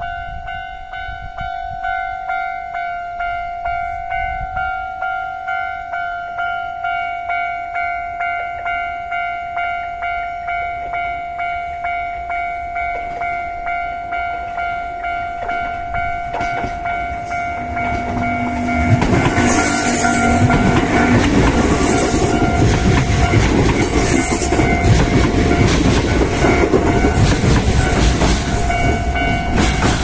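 Level-crossing warning bell ringing in a steady pulse of about two strokes a second. About two-thirds of the way in, a Kintetsu electric train runs by loudly, its wheels clattering over the rails, while the bell keeps ringing underneath.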